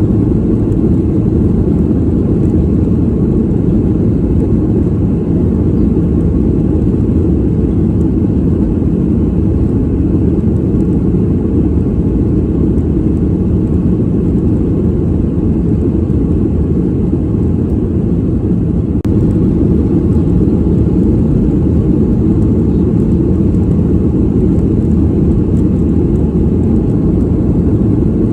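Airplane cabin noise in flight: a steady, deep rumble with little high end.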